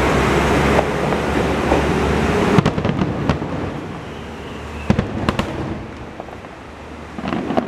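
Aerial fireworks bursting in the distance: a sharp bang about two and a half seconds in, then several more bangs and crackles, with a few more near the end. Under the first couple of seconds, the rumble of a departing Kanto Railway diesel railcar fades away.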